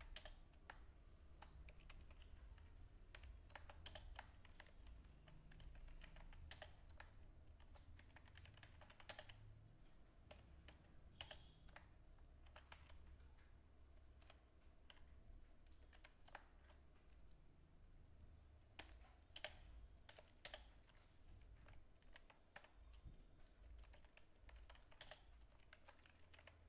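Faint computer keyboard typing: irregular, scattered key clicks over a low hum.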